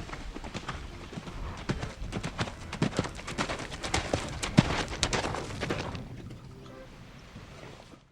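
Horse hooves clip-clopping, a quick run of hoof strikes that is loudest in the middle and fades away over the last couple of seconds before cutting off.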